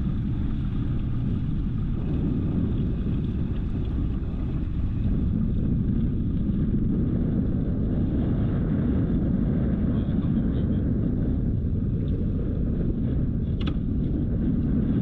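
Steady low rumble of a fishing boat's motor under way while trolling, mixed with wind buffeting the microphone.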